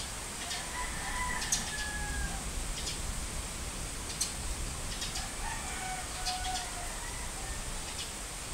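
A rooster crowing twice, about a second in and again about five and a half seconds in, with short bird chirps scattered throughout over a steady high hiss.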